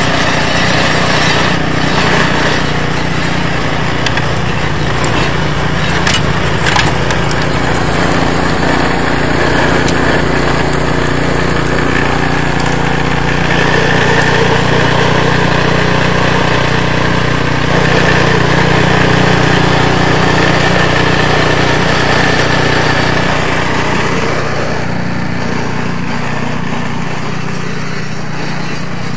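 Engine of a REDVERG RD-SB60/950BS-E two-stage petrol snowblower, which has an American-made engine, running steadily under load while its auger churns and throws snow. The sound eases slightly near the end.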